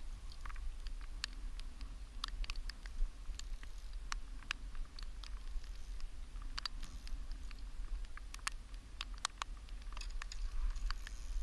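Irregular sharp light taps and clicks, a few a second, over a steady low rumble.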